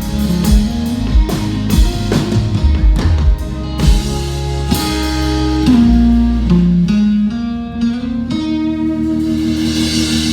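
Live rock band playing, with drum kit and guitars. The drum hits thin out about four seconds in, and held guitar and bass chords ring on.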